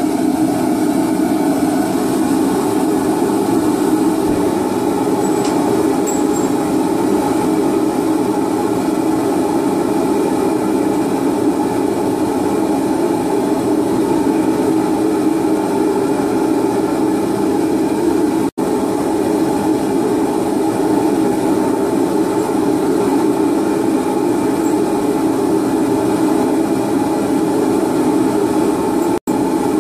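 Homemade propane forge's pipe venturi burners roaring steadily at full fire with the forge at working heat.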